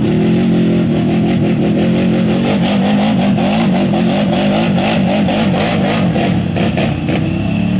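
ATV engines revving hard under load as the quads churn through deep mud, the pitch wavering up and down.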